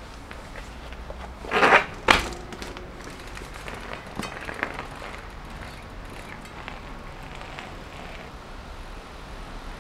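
Nukeproof Dissent downhill mountain bike being mounted and ridden off over asphalt: two loud knocks about a second and a half in, then a few lighter clicks over a steady low background.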